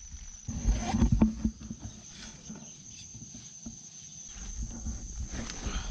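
Rustling and knocking of a handheld camera being moved against sleeping bags, bedding and tent fabric, loudest about half a second to a second and a half in, over a steady high tone in the background.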